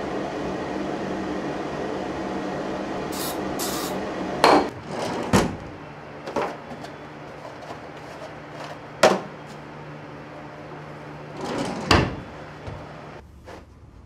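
A steady hiss, then a kitchen drawer knocking and clattering as it is opened and the things in it are handled: about half a dozen sharp knocks, spread out from a little past four seconds in to about twelve seconds in.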